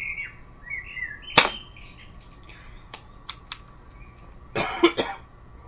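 Air pistol firing a dart: a single sharp crack about a second and a half in, followed by a few light clicks and, near the end, a short rustle of noise. Birds chirp at the start.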